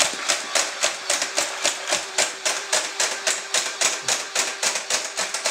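Belt-fed Nerf foam-dart blaster firing in rapid succession: a regular run of plastic clacks, about five a second, over a faint steady hum.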